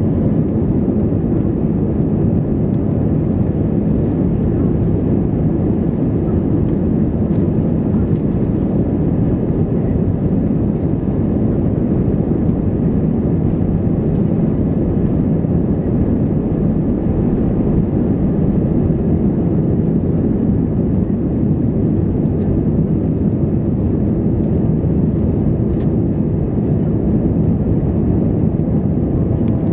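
Airbus A320 cabin noise during the takeoff roll and climb-out: the engines at takeoff power and the wheels on the runway make a loud, steady, deep rumble that carries on unchanged as the plane lifts off in the second half.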